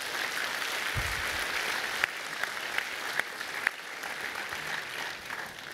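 A large audience applauding, with individual claps standing out in the middle; the applause dies down near the end.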